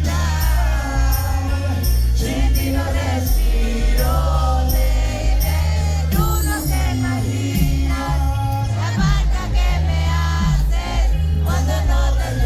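Live concert music: a singer's melody over a heavy, rhythmic bass beat, loud and continuous.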